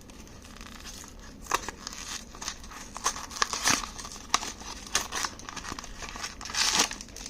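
A small blind-box toy package being unwrapped by hand: its plastic wrapping crinkling and tearing in quick irregular crackles, starting about a second and a half in and busiest near the middle and the end.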